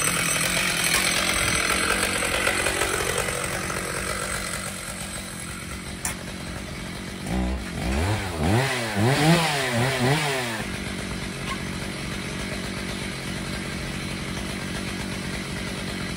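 Stihl MS 881 two-stroke chainsaw powering a chainsaw mill. It runs loud at first and fades over the first few seconds. About seven seconds in it is revved up and down several times in quick succession for some three seconds, then settles to a steady idle.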